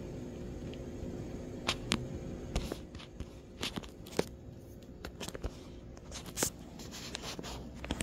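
Scattered light crackles and clicks at irregular moments over a faint steady hum, with rustling of plastic wrapping.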